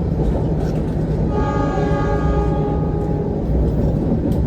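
Train horn sounding one steady chord for about two seconds, over the continuous rumble of a passenger coach running on the rails.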